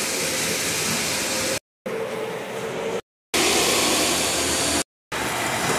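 Three-rail O-gauge model trains running on the layout: a steady mechanical whir and rumble, cutting out to silence three times for a fraction of a second.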